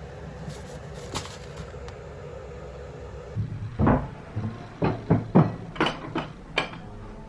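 Kitchen handling noises: about seven sharp clacks and knocks in quick succession over the last three seconds or so, after a few faint ticks about a second in.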